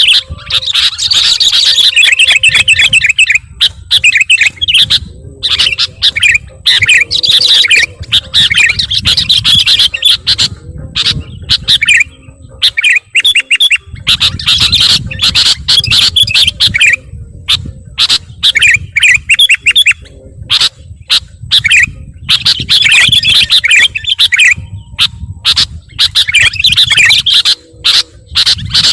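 Sooty-headed bulbul (kutilang) calling in loud, rapid chattering phrases, one burst after another with short gaps: a lure call for trapping bulbuls.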